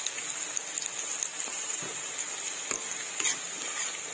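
Chopped green beans and onion sizzling in hot oil in a metal kadhai, stirred with a steel spoon that scrapes and clicks against the pan now and then.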